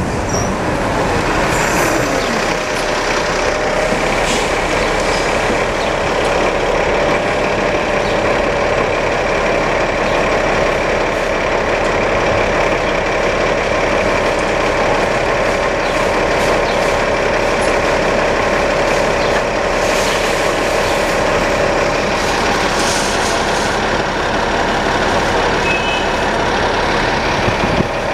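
2012 New Flyer XD60 articulated city bus pulling in and standing at a stop, its engine running with a steady tone. A few short hisses of compressed air come from the brakes and doors.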